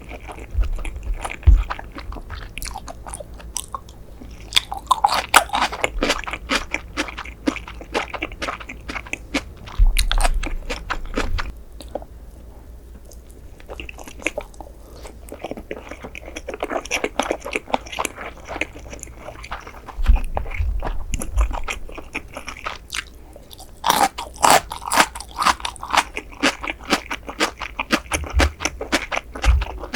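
Close-miked chewing and biting of sushi, with wet, crunchy mouth clicks coming thick and fast, easing off briefly about halfway through, and a few dull low thumps.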